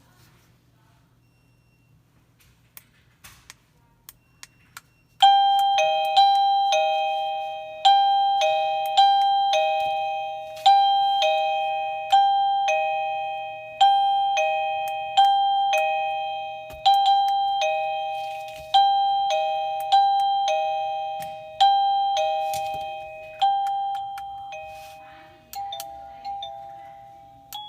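Wireless doorbell receiver chiming a two-note ding-dong over and over, a higher note then a lower one, each ringing out and fading, about every second and a half. It starts about five seconds in after a few faint clicks, and near the end it changes to quieter, different notes.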